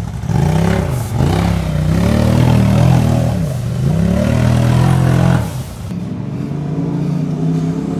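Sport side-by-side UTV engine revving up and down over and over as it churns through a muddy water hole. About six seconds in, the revving gives way to a quieter, steadier engine sound.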